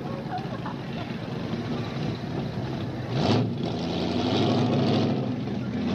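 Large 1970s American car's engine running at low speed as the car rolls slowly by, with a brief rev about three seconds in and the engine a little louder for the next couple of seconds.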